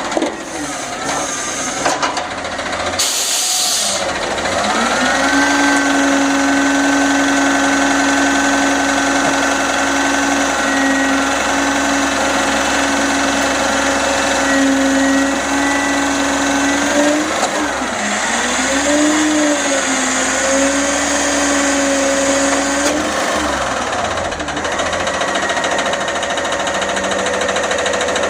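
Peterbilt garbage truck working at a pickup: a short hiss of air, then a steady mechanical whine from the engine and hydraulics held at raised revs. It dips and wavers about two-thirds of the way through, then dies away near the end.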